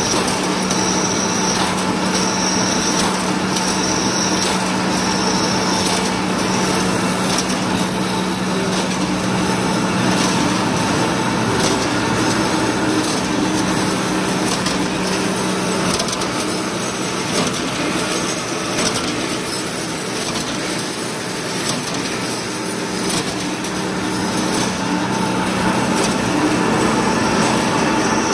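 Wire straightening and cutting machine for 3–8 mm ribbed steel wire running: a loud, steady mechanical din with a constant hum, broken by frequent metallic clicks and knocks.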